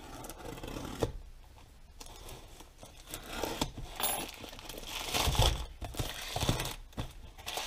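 Black plastic parcel wrapping crinkling and tearing as it is pulled open by hand, with a couple of dull knocks of the box against the bench about five and six and a half seconds in.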